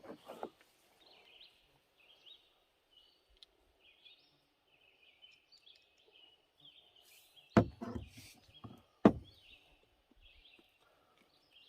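Small birds chirping steadily in the background. About two-thirds of the way in come two sharp, loud knocks about a second and a half apart.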